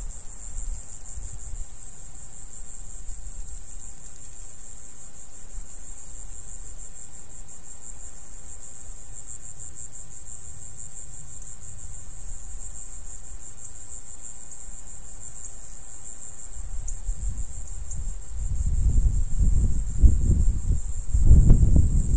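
Steady, high-pitched insect chorus trilling without a break. Near the end, low rumbling gusts swell in and out and become the loudest sound.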